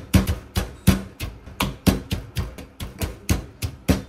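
Pestle pounding chillies and garlic in a stone mortar: quick, regular thuds, about five a second.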